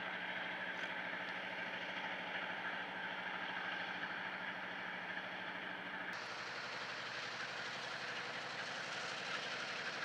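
Diesel freight locomotive's engine running steadily while flames shoot from its exhaust stack. The sound changes character about six seconds in: the lower hum fades and a hiss grows.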